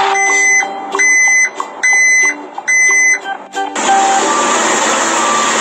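Background music: a repeating high beeping phrase about once a second, four times, over lower notes, giving way about two-thirds in to a dense hiss with scattered notes.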